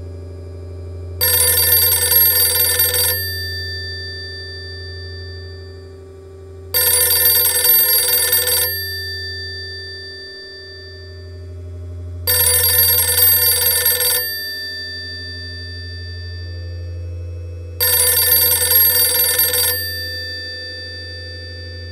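Old rotary telephone's bell ringing four times. Each ring lasts about two seconds, the rings come about five and a half seconds apart, and each leaves a short ringing tail. A steady low synthesizer drone runs underneath.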